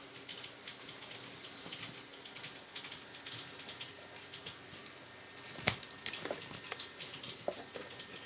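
Light, irregular clicks and taps of a vintage Zündapp sewing machine being handled as its underside cover is opened, with one sharper knock about five and a half seconds in.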